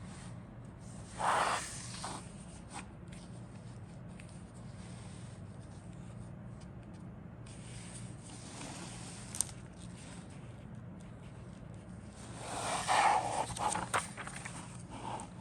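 Plastic model-kit parts and packaging being handled: two bursts of rustling and scraping, one about a second in and a longer one near the end, with a single click in between, over a low steady hum.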